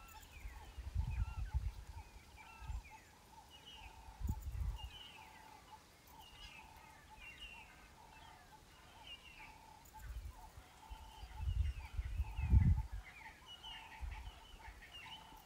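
Wild birds calling in the bush with many short chirps and whistles, over a steady high drone. Irregular low rumbles come and go, the loudest around twelve seconds in.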